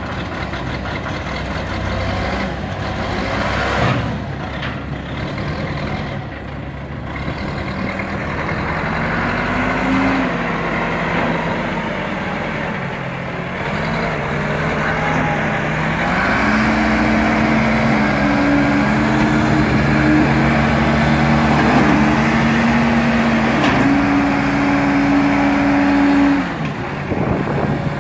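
Case 770 backhoe loader's diesel engine running, its speed rising and falling as the machine is worked. It climbs to a higher, steady pitch about sixteen seconds in, holds there, drops sharply near the end, then picks up again.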